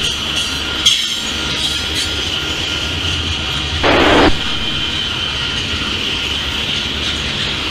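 Freight train of refrigerated boxcars rolling past: a steady rumble of wheels on rail with a steady high-pitched tone over it. There is a sharp click about a second in and a brief loud rush of noise about four seconds in.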